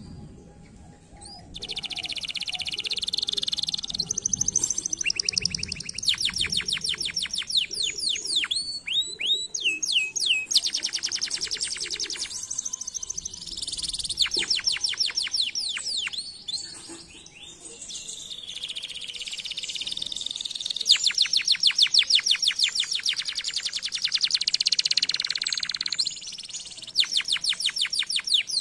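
Domestic canary singing long phrases of fast trills and rolls made of rapidly repeated high notes, with short pauses between phrases and a longer break about halfway through.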